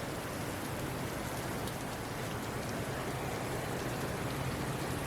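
Heavy rain falling on the hangar, heard from inside: a steady hiss with scattered faint drop ticks.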